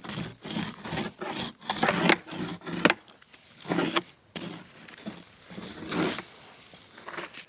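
Irregular crunches, scrapes and knocks of packed ice and slush inside a snow sweeper's brush housing being handled and dug at.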